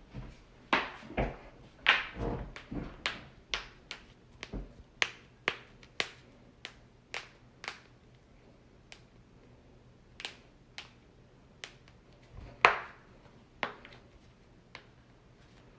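A long run of sharp joint cracks and pops from a human body: many quick pops close together through the first half, then fewer and further apart, with the loudest single crack about three-quarters of the way through.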